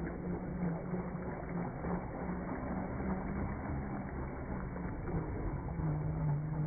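MN999 1/10-scale RC truck running on its brushed motor and gearbox, a steady low hum whose pitch wavers and breaks as the throttle changes, over a rough mechanical noise.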